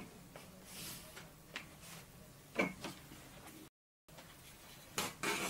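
Chalk and a wooden ruler against a blackboard while nouns are being underlined: a few light, scattered knocks with a brief chalk scratch about a second in. The sound cuts out completely for a moment a little after three and a half seconds.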